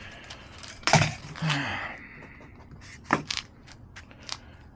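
Sharp clicks and light clatter of tools and small objects being handled, the loudest knock about a second in and a few smaller clicks around three to four seconds in.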